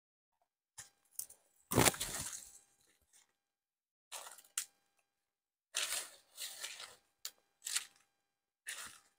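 Footsteps crunching through dry leaf litter and twigs, with brush scraping past, in about ten uneven bursts; the loudest crunch comes about two seconds in.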